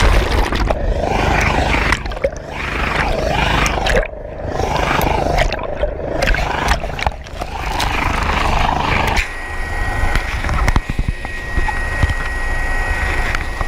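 Water churning and splashing over a head-mounted camera as it goes in and out of the lake under a hovering helicopter's rotor wash. About nine seconds in, this changes abruptly to the steady drone of the helicopter's cabin with a thin, high, steady whine over it.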